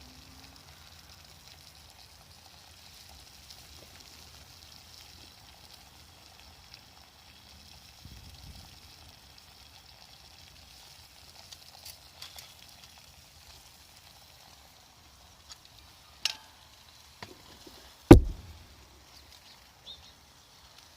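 Faint steady hiss of water at a rolling boil in a pot on a meths-fuelled Volcano stove, broken in the second half by a few light knocks and one loud thump about 18 seconds in.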